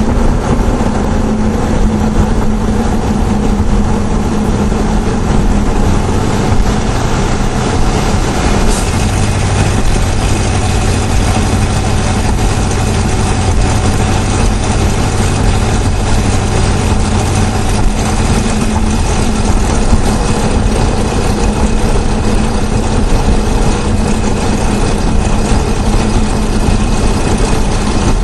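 GM LS4 5.3-litre V8 running with a fast, steady chatter over the engine note, recorded close under the hood; a deeper drone comes in for several seconds partway through. The owner links the chatter to the Displacement on Demand system, says it is getting worse over time and is not an exhaust leak, though others have called it normal.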